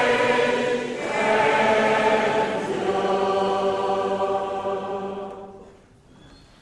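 A congregation singing a hymn together, ending on a long held note that dies away about five to six seconds in.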